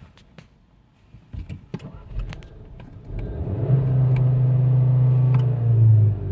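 A few light clicks, then a loud steady hum from a Skoda Yeti that dips slightly in pitch and stops near the end: the weird noise the owner cannot identify.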